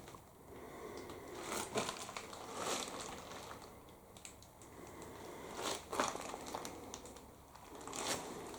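Footsteps and rustling through clutter on the floor of a small room: scattered crinkling and crunching with a few sharper clicks.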